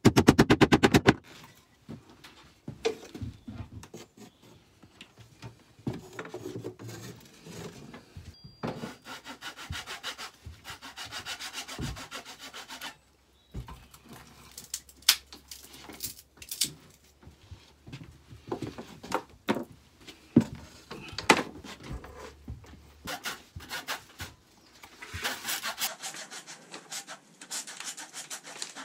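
A small handsaw cutting through wooden carpet gripper rod, in several bursts of quick back-and-forth strokes, with scattered knocks and taps between.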